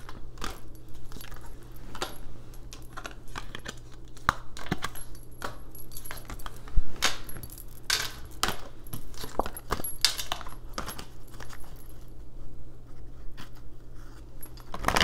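Tarot cards being handled and shuffled: an irregular run of crisp clicks and snaps, the sharpest about 7 s in, over a steady low hum.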